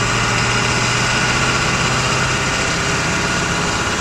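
Ford F-350's 7.3-litre Power Stroke V8 turbo-diesel running steadily, heard from inside the cab while driving.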